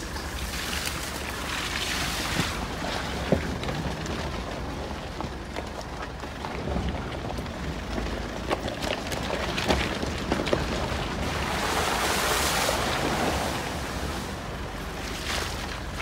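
Car driving slowly over rough gravel and through brush: a steady rumble of tyres with scattered knocks and bumps, and wind buffeting the microphone. About twelve seconds in there is a louder rush.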